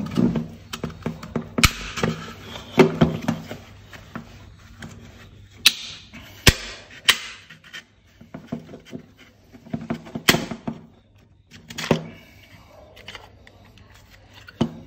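Plastic cover of a VW Golf/Jetta Mk6 door lock module being pried off with a flat screwdriver: a run of small clicks and scrapes with about half a dozen sharper cracks and snaps as the stuck-on cover breaks loose.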